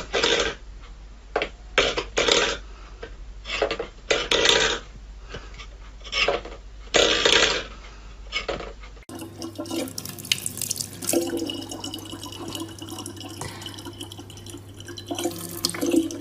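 A string of short, irregular clatters, then a thin stream of tap water trickling into an open plastic bottle over a steady low hum.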